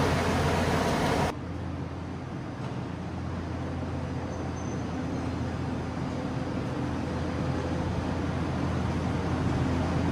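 A steady diesel-engine hum of heavy demolition machinery, with the loud rushing air and water spray of a dust-suppression misting fan cannon close by for the first second or so. The rushing cuts off abruptly, leaving a quieter, steady drone of excavator engines working at a distance.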